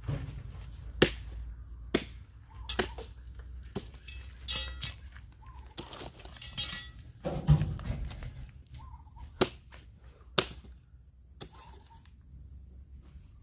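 Irregular heavy thuds and knocks, about a dozen, the loudest a little past halfway, over a low steady hum: oil palm fruit bunches being thrown into a truck bed during loading.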